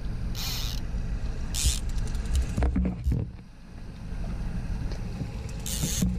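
A boat's engine running steadily with wind rumble, under the clicking of a multiplier trolling reel being cranked in with a fish on. Short hissing bursts come about half a second in, near two seconds and near the end.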